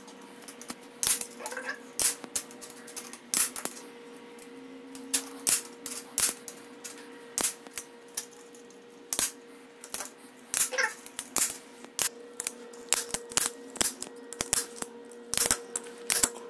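Hand-squeeze staple gun firing staples through screen mesh into a wooden dowel: a long run of sharp snaps, irregularly spaced at about one to two a second, some in quick pairs.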